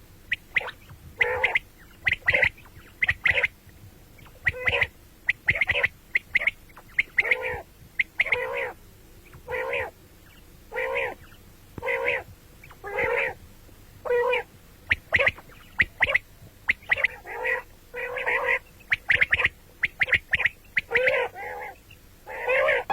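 Quail calling over and over, a fast, uneven run of short sharp notes mixed with longer notes of about half a second.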